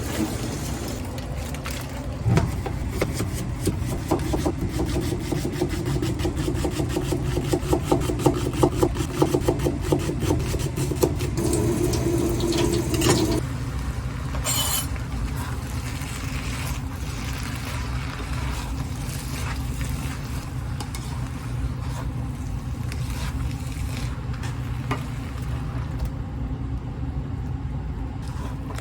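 Spatula scraping and stirring thick minced-meat curry in a pot, over a steady low hum. The scraping strokes are busiest until about halfway through, then thin out.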